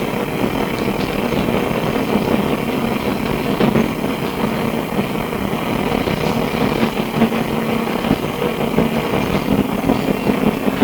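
Inside a Melbourne SW5 class tram under way: steady running noise with a low hum from the motors and gearing, and occasional short clicks and knocks from the car.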